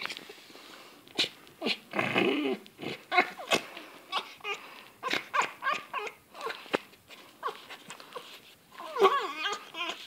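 A pet white fox making a run of short, whining and chattering calls in quick irregular succession, with a longer call about two seconds in and a dense cluster near the end. These are play vocalizations as it mouths a person's hand.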